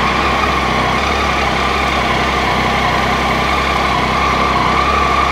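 2015 Triumph Tiger 800 XCx's three-cylinder engine idling steadily, with a steady high whine on top.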